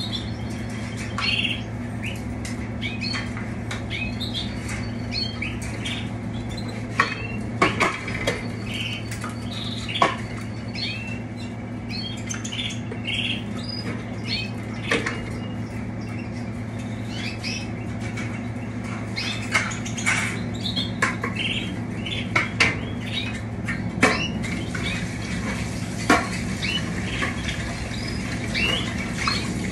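Many caged canaries giving short high chirps and calls over a steady low electrical hum, with a handful of sharp clicks and clatters scattered through.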